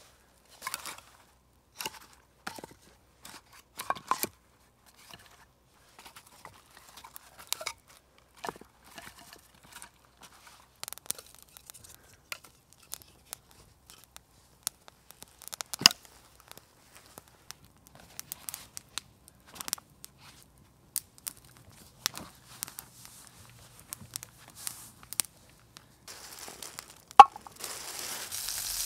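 Scattered short crinkles, snaps and knocks of hands handling food and cooking gear, with one sharp, loud knock near the end. Then a sizzle starts and grows as food begins frying in a hot pan over a campfire.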